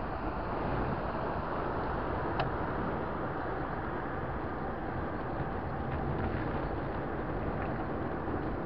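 Steady road and traffic noise with wind rushing over the microphone while moving along a road. A single short, sharp tick about two and a half seconds in.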